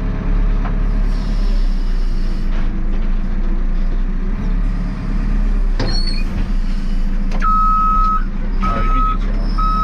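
JCB 3CX backhoe loader's diesel engine running steadily under work, with a single short knock about six seconds in. About seven and a half seconds in, its reversing alarm starts beeping, a steady high beep repeating roughly once a second as the machine backs up.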